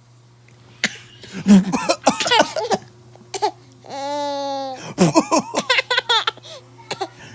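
A man coughing in short, sharp bursts and a baby laughing in response, in two rounds about a second and five seconds in, with one long held vocal sound between them.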